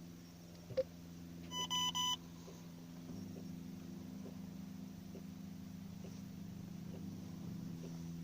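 A sharp click, then a quick run of three electronic warning beeps from the car's dashboard, over a steady low hum that gets louder about three seconds in.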